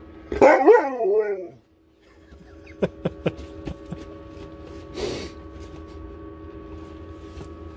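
A husky gives a short, loud vocal 'talking' sound that bends up and down in pitch at the start. After a brief break there is a steady hum, with scattered sharp clicks and a short rustle about five seconds in.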